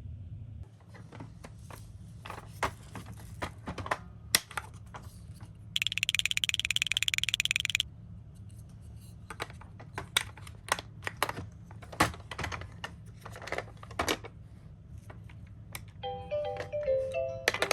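Small die-cast toy cars clicking and clattering against one another as they are handled, over a steady low hum. A rapid electronic buzz lasts about two seconds near the middle, and electronic tones begin near the end.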